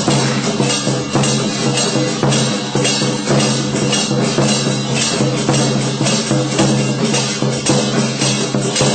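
Temple-festival music: drums and percussion beating a steady rhythm of about two to three strokes a second, over a steady held low tone.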